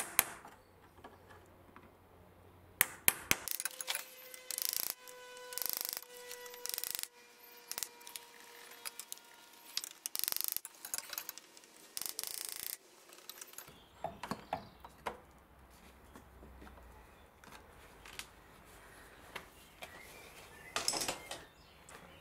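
Screwdriver and pliers prying and twisting stuck air-conditioning pipe joints off the condenser: irregular bursts of metal scraping and rubbing, with sharp clicks and a thin squeak partway through.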